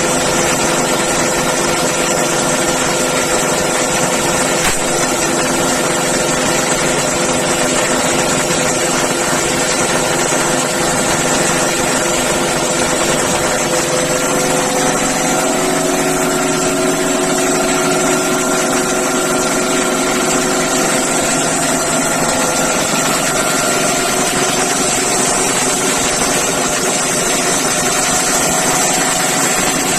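High-pressure breathing-air compressor running steadily while it charges an SCBA cylinder, its tone shifting slightly about halfway through.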